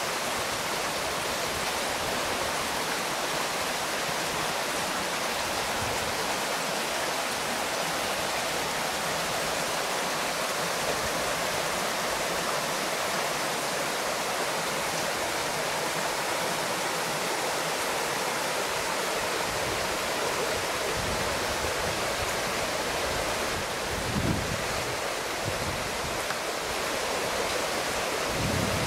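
Shallow rocky stream rushing over and around boulders, a steady rush of running water, with a few low rumbles near the end.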